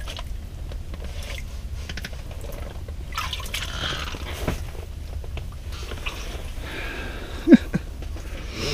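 Water splashing and dripping as a northern pike is pulled up out of an ice-fishing hole and handled, with one sharp thump near the end.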